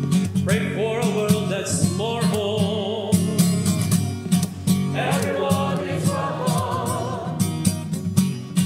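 Choir and congregation singing a hymn-like song in parts, in phrases with short breaths between them, over steadily strummed acoustic guitar.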